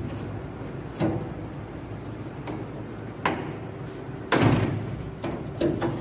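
Knocks and rattles of an air conditioner's condenser coil and sheet-metal side panel being handled and shifted by hand: a few separate knocks, the loudest about four seconds in, followed by a short rattle and small clicks.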